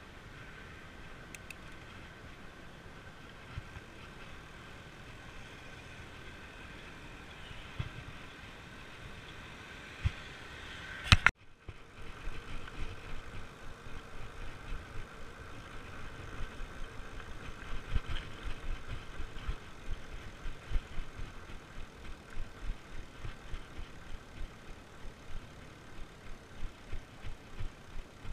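Fat bike's wide tyres rolling along a paved path with a steady hum. About eleven seconds in there is a sharp click, and after it a run of low thumps, one or two a second, as the tyres and bike jolt over the joints and cracks of a concrete-slab path.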